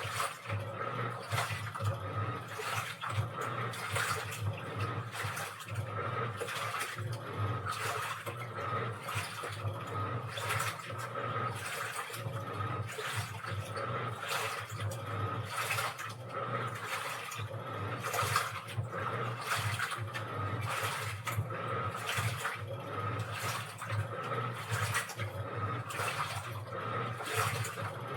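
Washing machine running, water sloshing and splashing in the drum over a steady motor hum.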